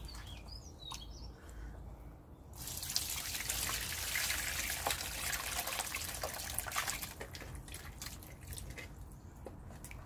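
Hands squishing cooked eel in a tub of water. About two and a half seconds in, the watery eel mash is poured into a plastic colander, and the liquid runs through it for several seconds. Quieter wet squelching follows as the mash is worked by hand to strain the flesh from the bones.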